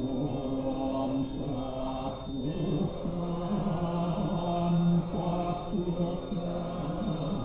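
Balinese Hindu prayer mantras chanted in a slow, drawn-out melodic line, the pitch stepping between long held notes.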